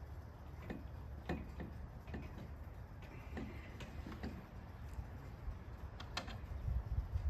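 Irregular light clicks and taps, about one or two a second, of parts being handled during assembly, over a low steady rumble.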